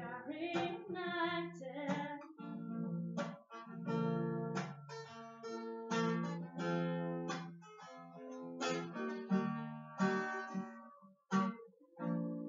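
Acoustic guitar strummed in a steady rhythm of chords, with a woman singing along, her voice most prominent in the first couple of seconds.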